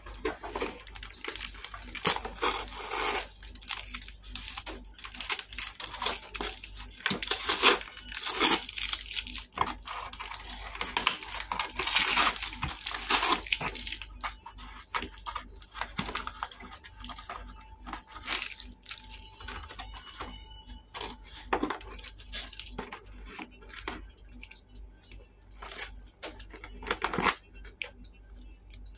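Cardboard toy packaging being handled and torn, with rustling, scraping and scattered clicks as plastic clips are worked loose from it. Dense and busy for about the first half, then sparser clicks and scrapes.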